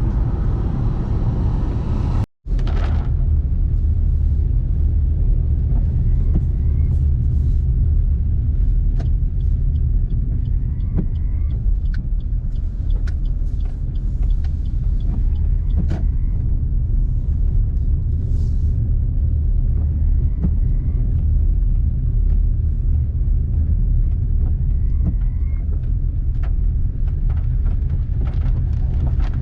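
Car road noise: a steady low rumble of engine and tyres on a wet road, with scattered faint ticks. The sound cuts out completely for a split second about two seconds in.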